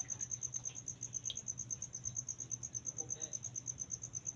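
An insect, likely a cricket, trilling in a steady, high-pitched pulse train of about ten pulses a second, over a faint low hum.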